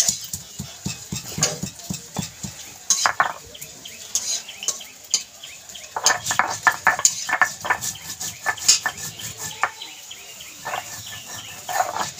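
Stone pestle (nora) rubbed back and forth on a pitted stone grinding slab (shil), grinding garam masala: a run of rough stone-on-stone scraping strokes, quicker and louder from about halfway.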